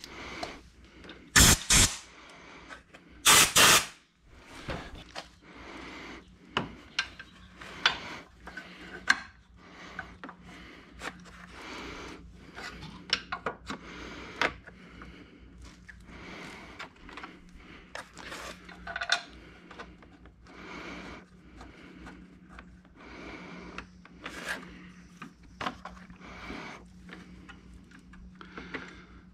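Hand tools and hardware being handled in close work on a motorcycle frame: irregular clicks, taps and scraping of a ratchet, sockets and bolts. Two brief loud bursts of noise come about one and a half and three and a half seconds in, over a faint steady hum.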